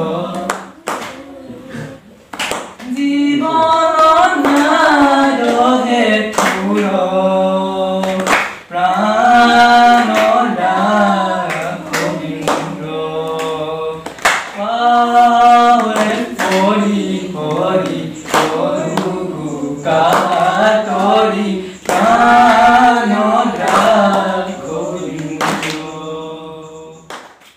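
A group singing a devotional song together in phrases, with regular hand claps keeping time. The singing fades away near the end.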